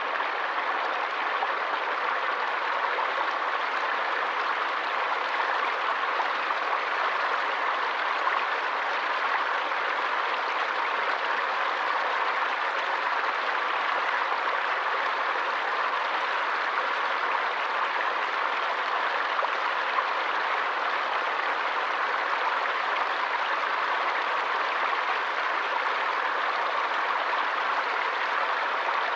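A forest stream's water rushing, a steady, even sound that never changes.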